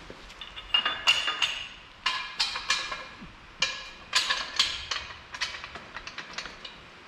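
Metal clanks and rings in several quick clusters as a length of metal tubing and the parts of a manual tube bender are handled and set in place.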